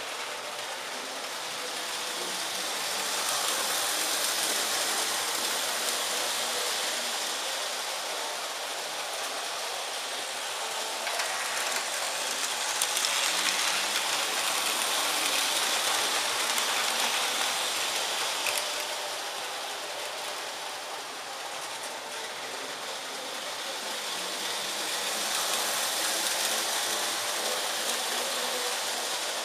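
Lionel model train running on three-rail metal track: a steady rolling rattle of wheels and motor that swells three times as the train passes close, with a couple of light clicks.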